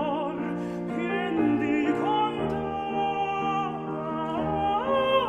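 Background music: a slow classical or operatic piece with a sung or held melody with vibrato over sustained accompaniment.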